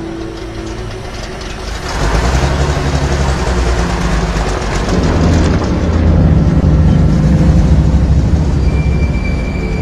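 Large truck's engine starting up about two seconds in and running steadily, getting louder about six seconds in.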